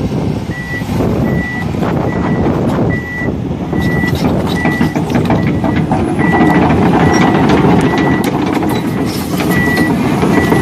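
Radio-controlled toy excavator's electric track drive whirring, its plastic tracks clattering as it climbs the ramp of a toy low-loader trailer, with a high electronic warning beep repeating a little more than once a second.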